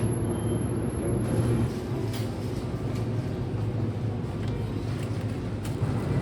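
Road and engine noise inside a Daihatsu Wake's cabin while driving: a steady low drone with rumbling tyre noise and a few faint knocks.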